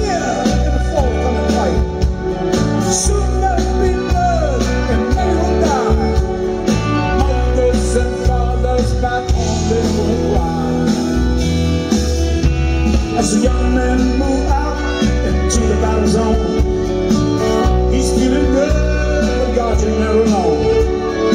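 Live rock band playing an instrumental passage at full volume, with a steady low end of bass and drums under a lead melody of sliding, bending notes.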